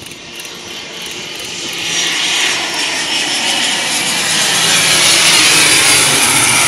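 ATR 42-500 twin-turboprop airliner passing close as it lands. The engine and propeller roar grows steadily louder, with a high whine over it, and peaks as the main wheels meet the runway near the end.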